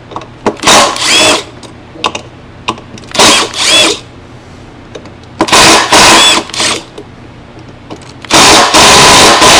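A cordless power driver running in four short bursts, backing out the four screws that hold the fan of a RedMax backpack blower engine; the last burst is the longest.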